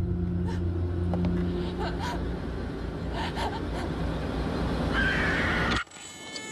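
Trailer sound design: a heavy low rumble with scattered knocks, and a shrill screech rising over it from about five seconds in. Everything cuts off suddenly just before six seconds, leaving a ringing tone.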